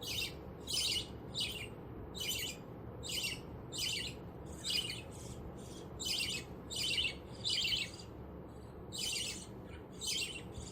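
Budgerigar chick giving raspy, high begging calls while being hand-fed from a syringe, about two a second, with a short pause around eight seconds in.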